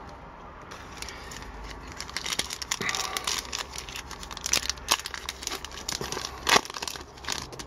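Foil wrapper of a hockey card pack being crinkled and torn open by hand: a run of sharp crackles, with a few louder snaps in the second half.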